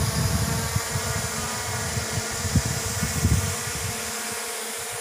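Camera drone flying overhead: a steady, high buzzing whine of its propellers, over irregular low rumbling on the microphone.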